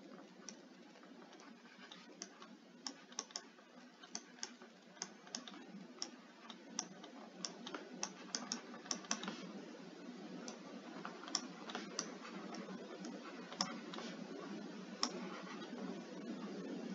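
Stylus tapping on a tablet screen during handwriting: a run of irregular clicks, thickest in the middle and thinning out toward the end, over a steady low hiss.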